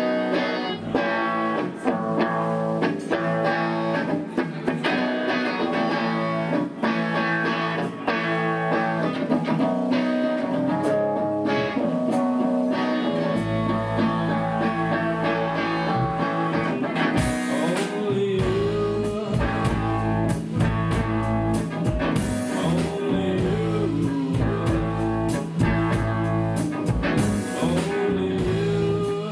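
A live rock band playing a cover song on electric guitar, bass and drums. About halfway through the low end fills out and the drum hits get denser.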